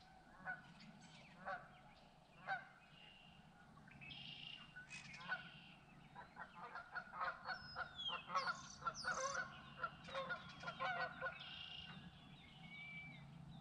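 Geese honking faintly: three single honks about a second apart, then a rapid flurry of many overlapping honks in the middle, with a few higher bird chirps above them.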